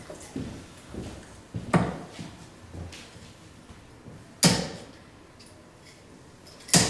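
Three darts thudding into a bristle dartboard one after another, about two and a half seconds apart, the second and third hits the loudest.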